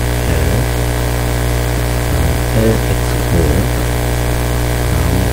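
A steady, loud low electrical hum in the recording, like mains hum picked up by the microphone, with a man's voice speaking a few short words over it.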